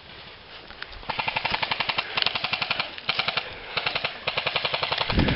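Airsoft guns firing full-auto in several long, rapid bursts with short pauses between them, starting about a second in. A low thump comes near the end.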